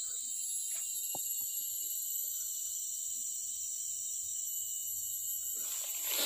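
Insects shrilling steadily in a high, even buzz, with a rustle of dry leaves near the end.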